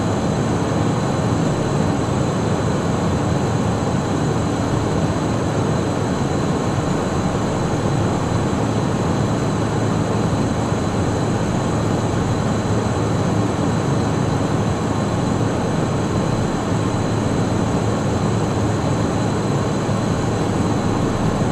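Steady cockpit noise of a Cessna Citation Mustang in flight: the constant rush of its two Pratt & Whitney PW615F turbofans and the slipstream, with a thin, steady high whine over it.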